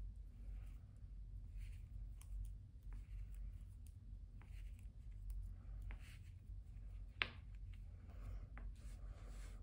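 Faint hand-knitting sounds: metal circular needle tips clicking softly and yarn rustling as stitches are purled, with one sharper click about seven seconds in.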